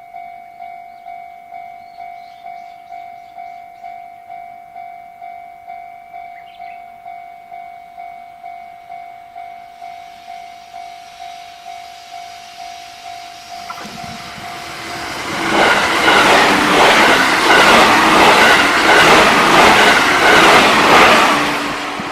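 Japanese level-crossing alarm ringing a steady, evenly repeating electronic tone; about fourteen seconds in, a JR Central electric train comes up and passes close by, loud for several seconds with a rhythmic clatter of wheels over rail joints that drowns out the bell before fading.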